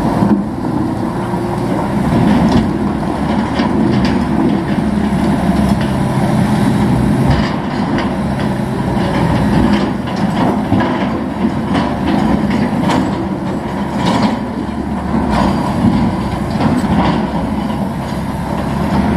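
Heavy diesel construction machine running steadily under work, with irregular metallic clanks and knocks.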